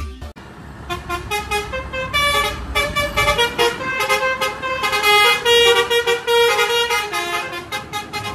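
Vehicle horns honking, several held tones at different pitches overlapping.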